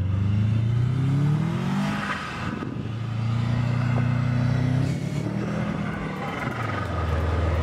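Subaru WRX STI's flat-four engine revving under load as the car slides in circles on snow. The pitch climbs over the first two seconds, holds, drops about five seconds in, then settles again.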